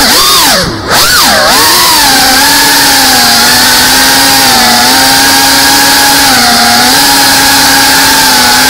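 GEPRC Cinelog 35 FPV drone's motors and ducted propellers whining, picked up by the camera mounted on the drone itself. The pitch swoops down and back up about a second in, then holds steady.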